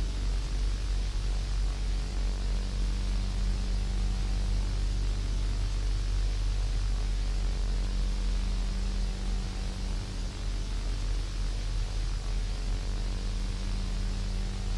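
Steady hiss of static over a low electrical hum.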